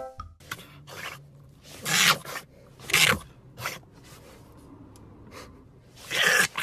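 A series of short, irregular scraping noises. The loudest come about two, three and six seconds in.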